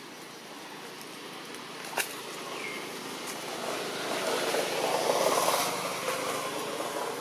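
A vehicle passing by: a broad rush of noise that swells from about three and a half seconds in, peaks past the middle and fades away. A single sharp click sounds about two seconds in.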